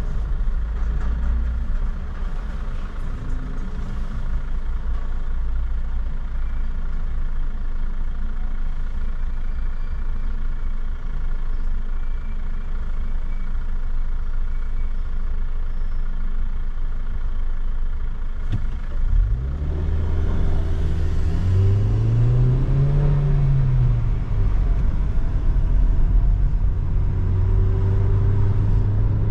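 Car engine idling with a steady low rumble. About two-thirds of the way in, after a click, the car pulls away: the engine note rises and falls as it accelerates, then settles into a steady drone at cruising speed.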